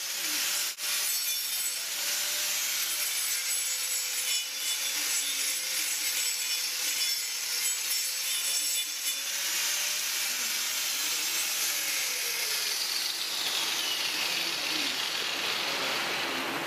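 Handheld power tool grinding the horn of a cow's hoof in hoof trimming: a steady rasping noise with a faint motor tone that wavers with the load and drops in pitch near the end.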